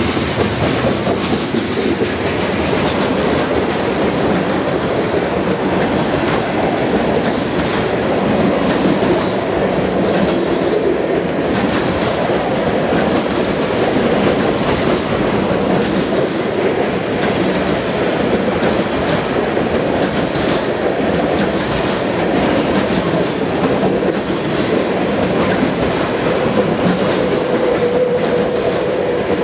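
A freight train of tank cars rolling past: a steady rumble of steel wheels on rail, with frequent clickety-clack as the wheels cross rail joints.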